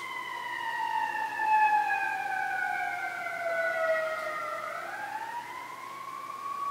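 Emergency-vehicle siren in a slow wail. Its pitch falls steadily for about four and a half seconds, then rises again.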